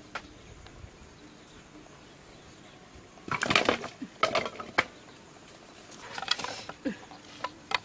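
Dry firewood sticks knocking and clattering together as they are set down on the ground, in a cluster of sharp knocks a little after three seconds in and another around six seconds in.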